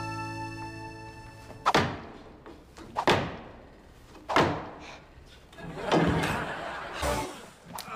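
Music fading out, then five sharp thuds about one to one and a half seconds apart, each with a quick swishing sweep: body-movement hits and whooshes as a martial artist swings on a pull-up bar and drops down.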